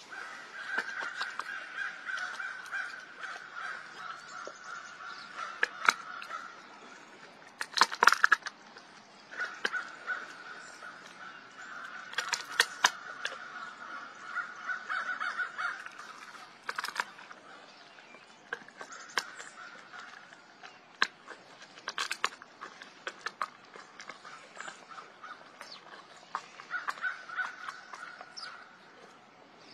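Young golden tabby tiger gnawing a bone: irregular crunches and sharp cracks as its teeth work the bone, the loudest cluster about eight seconds in, over stretches of a raspy grinding sound.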